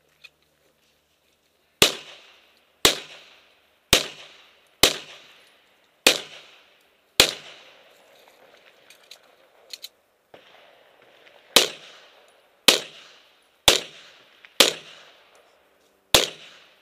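Handgun shots in a practical pistol course of fire: six shots about a second apart, a pause of about four seconds with a few faint clicks, then five more shots at a similar pace. Each shot is sharp, with a short ringing tail.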